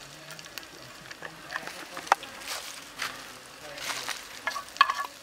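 Oil heating in a square pan over a wood fire, starting to sizzle, with scattered sharp pops and crackles from spitting oil and burning wood. A quick cluster of pops comes near the end.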